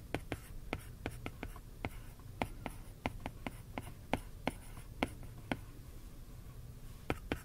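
Apple Pencil tip tapping and sliding on an iPad's glass screen while handwriting characters: a string of irregular sharp ticks, about three a second.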